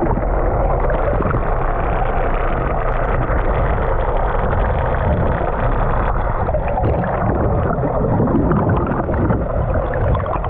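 Seawater rushing and gurgling, heard muffled from underwater through a camera's waterproof housing, over a steady low rumble.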